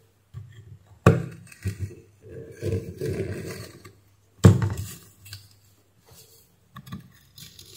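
Hand tools handled and set down on a hard workbench: a sharp knock about a second in and a louder one at about four and a half seconds, with lighter clicks and rubbing between.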